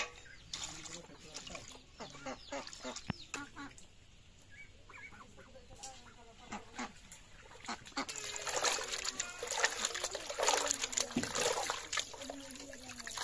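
Hands swishing and rubbing small fish in a metal pot of water, splashing and sloshing, loudest over the last several seconds; before that, scattered light taps and clicks.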